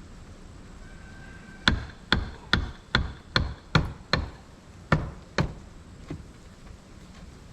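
Hammer striking about nine times in quick succession, a little over two blows a second, followed by one lighter tap.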